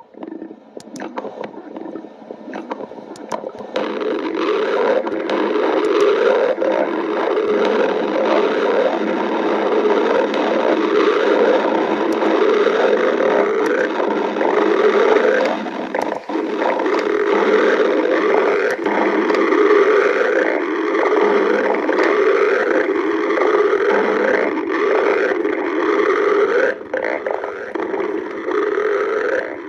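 Stomach growling: a long, unbroken gurgling rumble, with wavering squeals that rise and fall again and again. It builds up over the first few seconds, then stays loud.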